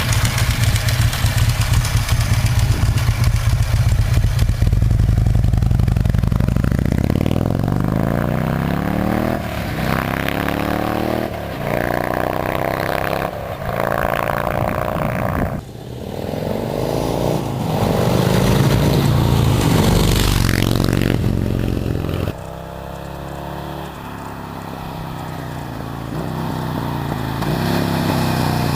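WAKAN motorcycle's S&S 100 cubic inch (1640 cc) V-twin engine running at low speed for the first few seconds, then revved, its pitch rising and dropping several times. About two thirds of the way through the level drops suddenly, then the engine climbs again near the end.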